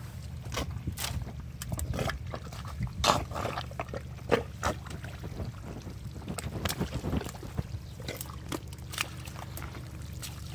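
Wet squelching and slapping of feet and hands working in thick swamp mud among dead branches: irregular wet clicks and slaps, loudest about three seconds in and again just after four seconds, over a steady low hum.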